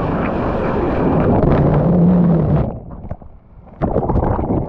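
Wind, rain and splashing sea water on a surfer's action-camera microphone. Near the middle the sound suddenly goes muffled and quieter as the camera dips into the water. It comes back loud with splashes and knocks as the camera surfaces.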